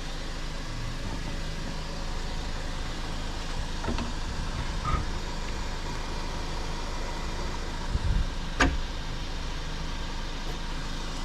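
A car's carbon fiber hood being lowered onto new hood pins: a few dull knocks and a sharp click about eight and a half seconds in, over a steady background noise, with a louder impact right at the end as the hood comes down.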